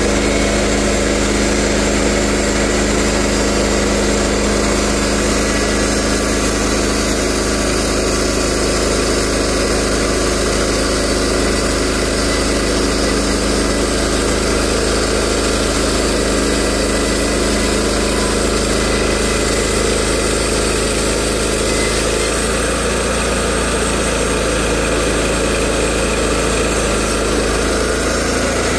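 Portable band sawmill's gasoline engine running steadily. A little over twenty seconds in, its note shifts lower.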